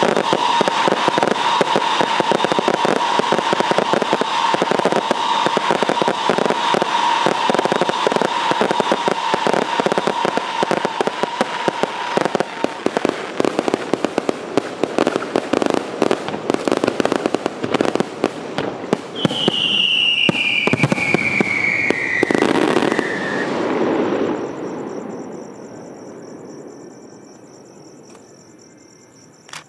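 Fireworks display: a dense, continuous crackling and popping of fountains and small aerial shells, with a steady whistling tone through the first dozen seconds and a falling whistle about twenty seconds in. The crackle dies away over the last few seconds, leaving crickets chirping.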